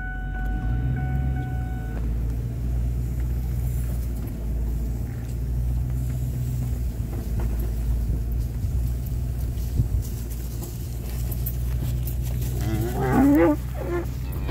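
A cow moos once, loudly, near the end, over the steady low rumble of the farm truck's engine idling.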